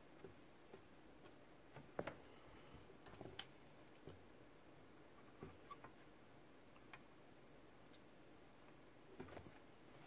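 Near silence, broken by scattered faint ticks and taps from hand-soldering on a circuit board, the sharpest about two seconds in.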